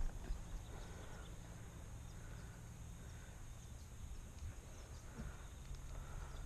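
Faint outdoor background: a steady low rumble with scattered faint high chirps.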